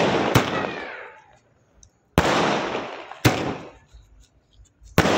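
A 60-shot sky shot firework cake firing shell after shell: four sharp bangs come one to two seconds apart, each followed by about a second of fading crackle as the bursts spread overhead.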